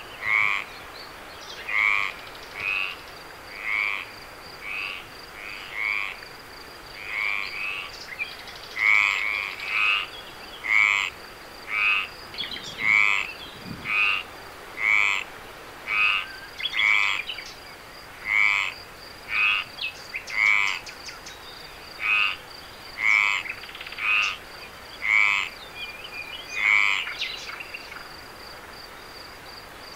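A frog calling over and over, short pulsed croaks about once a second, which stop near the end. A faint steady high insect trill runs underneath.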